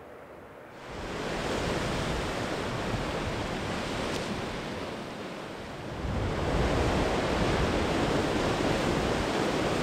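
Sea waves breaking and washing over a rocky shore: a steady rushing surf that comes in about a second in, eases briefly, then swells louder about six seconds in.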